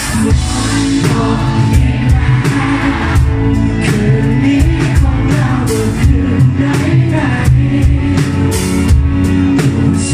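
A live rock band playing a song: drum kit with cymbals, electric guitars and bass, with the lead singer's voice over them. The full band comes in louder right at the start.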